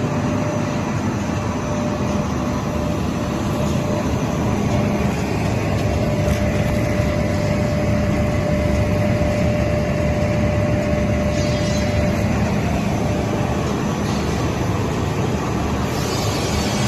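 Carbonization furnace plant machinery running steadily, a loud constant mechanical drone with a steady whine and low hum throughout.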